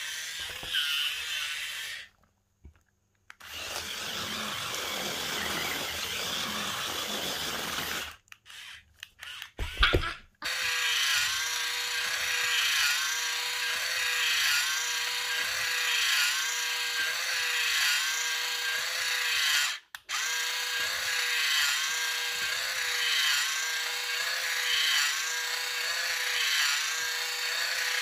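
Small electric drive motors of a toy twisting stunt RC car whining as it drives and spins, the pitch dipping about once a second in later stretches. The sound cuts out briefly a few times, and there is a sharp thump about ten seconds in.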